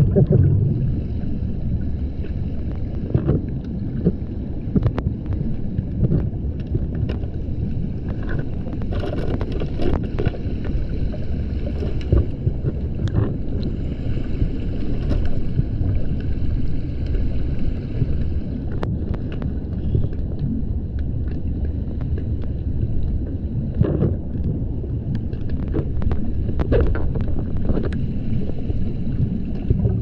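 Underwater noise as heard by a camera in its housing below a waterfall: a steady low rumble of moving water, with scattered small clicks and knocks.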